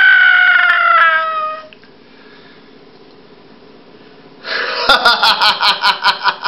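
A person's high, eerie wailing voice, held and then falling in pitch until it stops about a second and a half in. After a pause, a fast, pulsing high-pitched vocal sound with sharp clicks fills the last two seconds.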